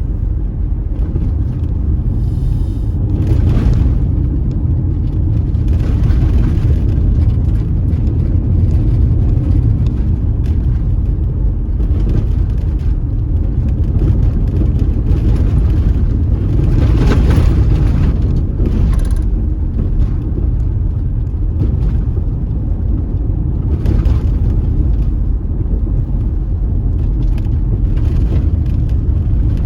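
Car driving on a dusty unpaved road: a steady, loud low rumble of tyres and engine, with a brief hissing swell now and then.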